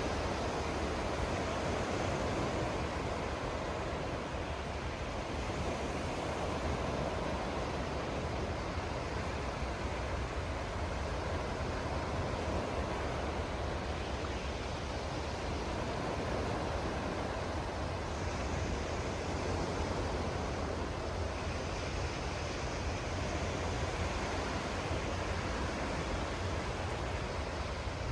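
Sea surf washing in steadily in slow, overlapping swells, over a constant low rumble.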